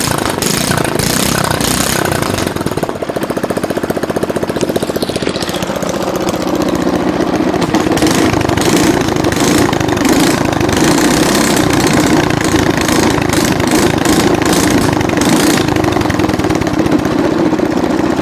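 Small carburetted engine running with no muffler, loud and raw. About five seconds in it is revved up and held at high speed, with sharp cracks through the exhaust.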